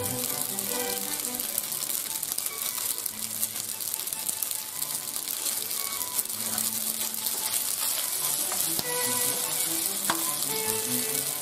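Penne and seared chicken sizzling in a nonstick frying pan while a wooden spoon stirs and tosses them. There are a couple of sharp knocks near the end.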